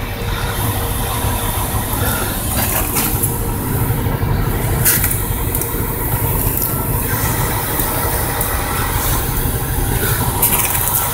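Steady low rumble of a running vehicle, with a faint steady hum through it and a few light clicks.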